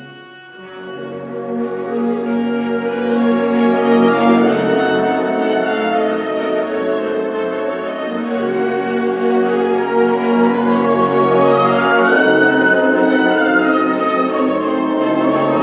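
Orchestral music: sustained strings with brass, swelling from a quiet opening to a fuller, louder sound over the first few seconds.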